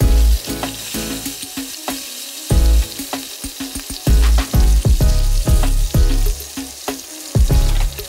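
Hot oil sizzling and spattering steadily around a whole split fish frying on high heat, with loud low thumps recurring about once a second.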